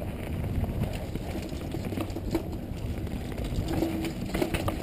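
Mountain bike riding fast down a dirt trail: a steady rumble of tyres over dirt and roots with clattering knocks from the bike. A brief steady hum comes in near the end.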